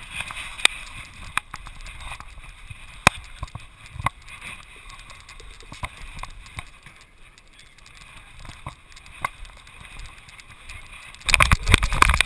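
Handling noise on a dog-mounted action camera: scattered clicks and knocks as a hand works the dog's collar and strap around the mount. About eleven seconds in, a much louder dense rubbing and rustling begins as the dog moves off.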